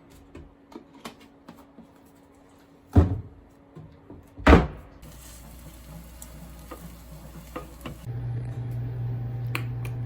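A few light clicks and two loud thumps about a second and a half apart, then a steady low hum that starts near the end.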